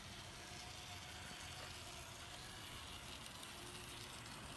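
Kato Portram N-scale model tram running along the track: a faint, steady whir of its small motor and wheels on the rails.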